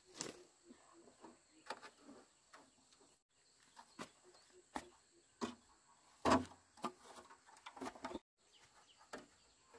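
Scattered light knocks and scrapes of wooden posts and corrugated fibre-cement roofing sheets being handled, with one louder thump a little past the middle.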